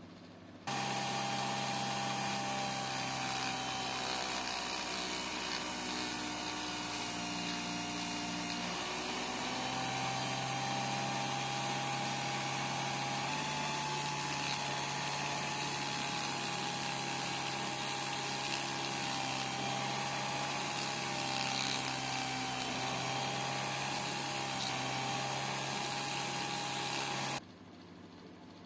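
A small electric machine runs with a steady hum and whine, switched on about a second in and off shortly before the end. Its pitch sags slightly for a few seconds, then recovers.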